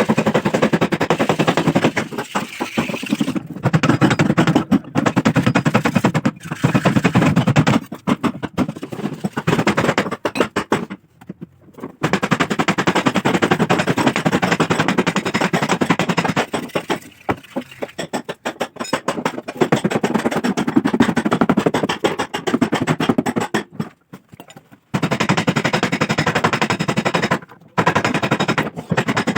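Rapid, repeated hammering on the sheet metal of a Maruti Suzuki Swift's rear quarter panel during dent repair, in runs of several seconds with short pauses between them.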